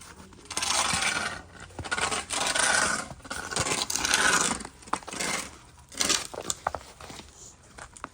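Icy snow being scraped, in about five rough strokes up to a second long each, with a few sharp clicks between them.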